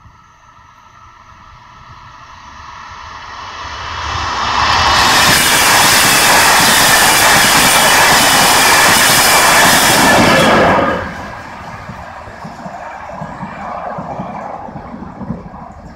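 Passenger train passing a level crossing: a faint steady whine as it approaches, then loud rolling wheel-on-rail noise about 5 to 11 seconds in, dropping off sharply as the last coach goes by.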